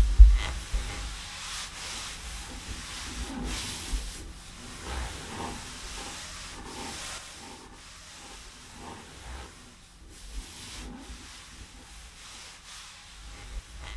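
Irregular rubbing and scraping strokes, some brushing and hissing, with soft low thumps, the strongest just at the start.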